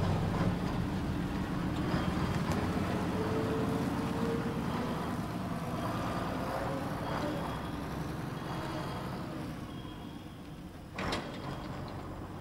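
Engine of an experimental low-noise Quiet Heavy Vehicle lorry tractor unit running as it pulls away and drives off, the sound fading as it goes. A brief sharp noise comes near the end.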